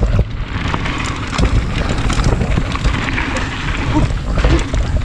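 Mountain bike riding fast down a rough dirt trail, heard from a chest-mounted camera: wind rumbling on the microphone under a dense run of rattles and knocks from the bike and its tyres over the ground.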